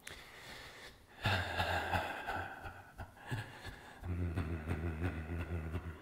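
A man's wordless vocalizing during a bouncing shaking exercise: a breathy voiced sigh about a second in, then a low steady hum from about four seconds in.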